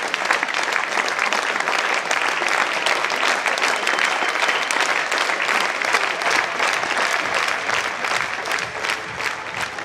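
Spectators applauding, a dense steady clapping that begins to die down near the end.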